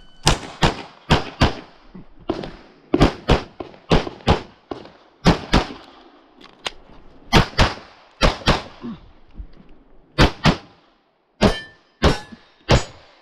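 Handgun firing rapid strings on a practical-shooting stage: shots mostly in quick pairs about a third of a second apart, with short breaks between groups and one longer pause about ten seconds in.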